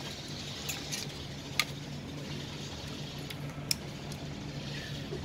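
Kitchen utensils clicking a few times against a clay mortar as the papaya salad is stirred, over a steady low hum.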